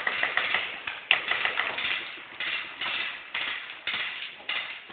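Paintball markers firing an uneven string of sharp shots, about two or three a second.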